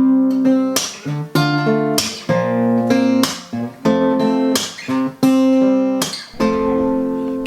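Music: acoustic guitar strumming chords in a steady rhythm, an instrumental stretch of a country-pop song with no singing.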